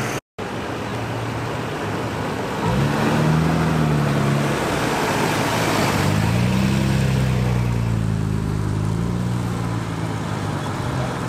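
Nissan Skyline R32 driving slowly past at low revs. Its engine note comes in about two and a half seconds in, wavers gently as it passes and fades as the car pulls away.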